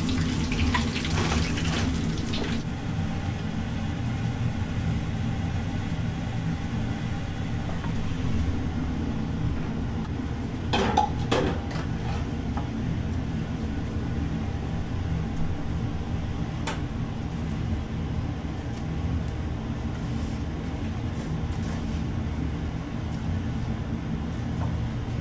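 Deep-fried chicken wings hissing in hot oil as they are lifted out of the wok, the sizzle stopping after about two seconds. A steady low kitchen rumble runs underneath, and metal tongs clink a few times against a steel tray and wire rack around the middle.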